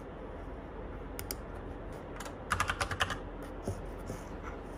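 Typing on a mechanical computer keyboard: scattered key clacks, with a quick flurry of keystrokes a little after halfway through.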